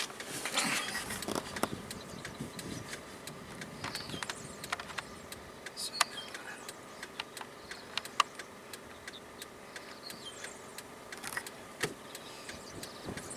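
Irregular sharp ticks and taps of rain or hail striking the car's windshield and body during a thunderstorm, over a faint steady hiss, with a louder rustle about a second in.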